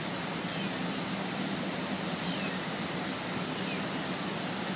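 Swollen mountain creek rushing steadily over rocks, with a few faint short meows from a stranded cat.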